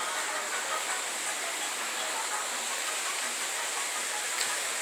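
Steady rush of running water, with a thin high hiss held steady above it.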